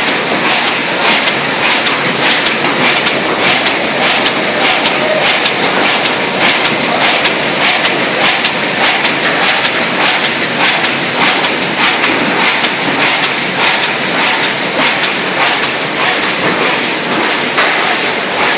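Automatic die-cutting machine running at speed, a loud, steady mechanical clatter with a fast, even rhythm of repeated clicks from its working cycle.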